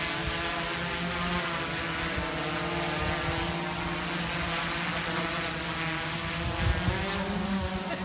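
DJI Inspire 1 quadcopter's four motors and propellers running with a steady, multi-pitched buzzing hum as it climbs away. A few low thumps come near the end.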